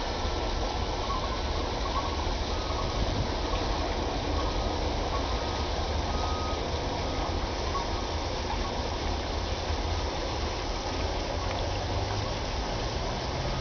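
Steady outdoor background noise: an even hiss over a heavy low rumble, with a few faint, short high beeps now and then.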